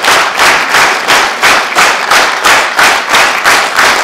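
Audience clapping in unison, a steady rhythm of about three to four claps a second: a rhythmic ovation for a speaker.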